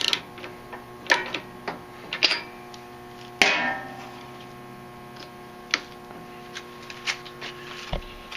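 Socket wrench on a lawn-tractor engine's spark plug: scattered metallic clicks and clinks, with one louder ringing clank about three and a half seconds in, over a steady hum.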